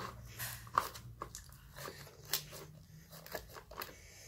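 Slime being handled and pressed into a container: scattered faint, irregular sticky clicks and crackles.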